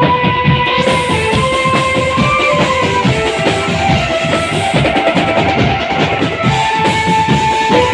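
Drum band music: fast, dense drumming with held melody notes over it.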